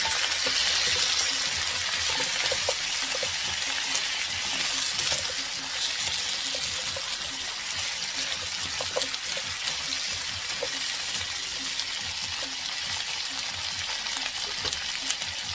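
Sliced sausage, carrots and onions sizzling in a frying pan as they are stirred with a spoon: a steady frying hiss with scattered small knocks and scrapes against the pan.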